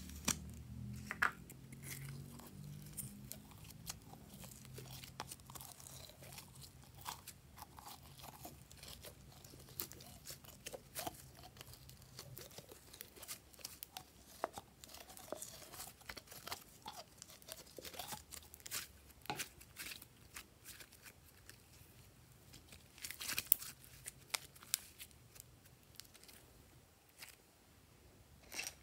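Thick slime being squeezed out of a soft plastic squeeze-toy bottle: faint wet crackling and popping with scattered sharp clicks, the loudest cluster about 23 seconds in.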